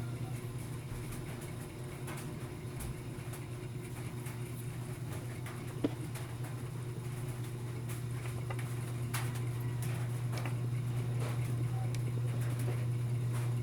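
Steady low hum with scattered small clicks and taps from handling the microphone wire and tools during a wire repair, with one sharper click about six seconds in.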